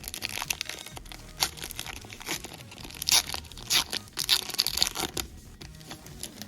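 Foil trading-card pack wrapper being torn open and crinkled: a run of sharp, irregular crackles that dies down about five seconds in.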